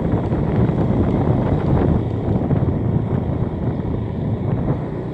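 Motorcycle riding along: a steady engine and road rumble mixed with wind buffeting the microphone.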